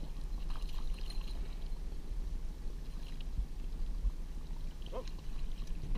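A hooked cutthroat trout splashing at the surface as it is reeled to the boat, over the steady low hum of the boat's motor running at trolling speed.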